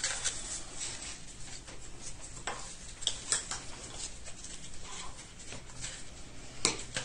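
Paper and card being handled and cut at a craft table: light rustling, scraping and small clicks, with a sharper click a little past the midpoint and another near the end.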